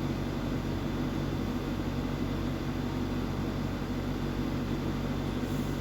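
Steady low machine hum with a layer of hiss, even throughout, with no distinct clicks or snaps.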